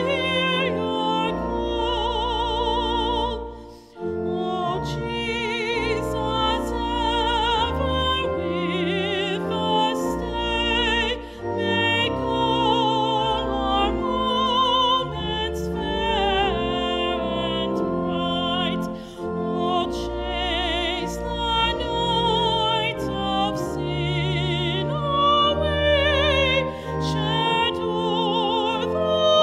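A woman singing a solo in a classical style with wide vibrato, over organ accompaniment with long held bass notes. The music briefly drops away about four seconds in, between phrases.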